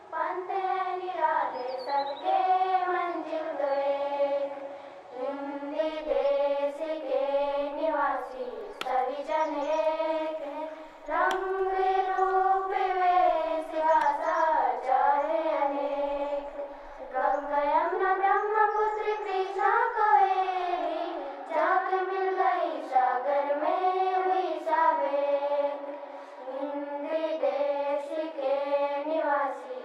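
A high-pitched voice singing a slow, unaccompanied melody in long gliding phrases, with short breaths between them.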